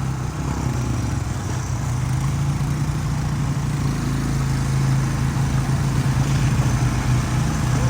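ATV engine running at a steady, even speed while riding, with a slight rise in level partway through.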